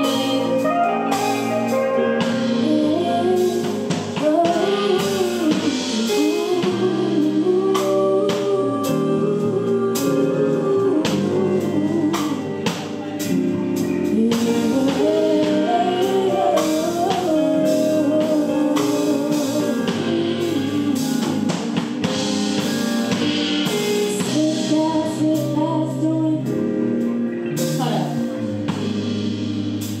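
Live R&B band playing with electric guitar, bass guitar, drum kit and keyboard, a woman singing a melody over it.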